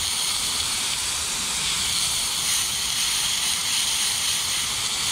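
McCulloch handheld steamer jetting a steady hiss of steam from its nozzle, held against vinyl lettering to soften the adhesive.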